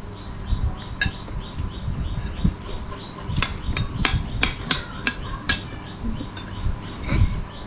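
Metal spoon and fork clinking and scraping against a ceramic plate and soup bowl as a child eats, a dozen or so separate sharp clicks at irregular intervals.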